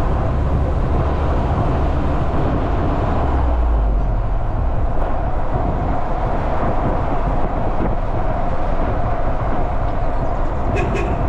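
Steady road and engine noise of a moving vehicle, heard from on board, with a constant low rumble.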